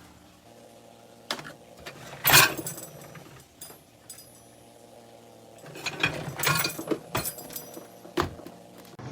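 COMFEE' countertop dishwasher running with a steady low hum, broken by several sharp knocks and rattles, the loudest about two seconds in and a cluster near the end.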